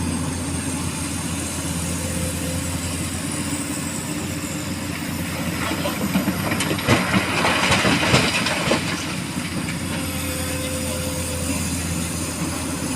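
An excavator's diesel engine running steadily, with a rattling clatter of small stones tipping from the bucket into a dump truck's bed about six to nine seconds in.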